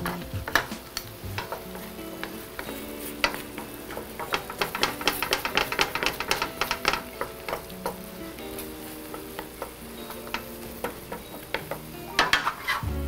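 Wooden spatula stirring risotto rice in a stainless steel pan, clicking and scraping against the metal, while the freshly added stock sizzles. The strokes come thickest in the middle and pick up again near the end.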